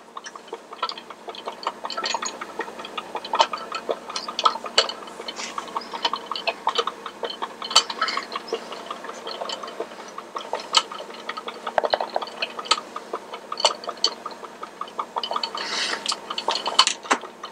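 Small gear motor of a Mr. Christmas carousel base running and turning its centre rotor plate, with a steady faint hum under a run of irregular ticking clicks from the mechanism.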